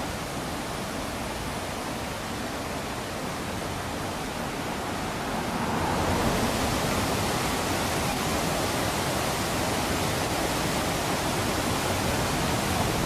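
Rushing water of a mountain stream: a steady hiss that grows louder about six seconds in.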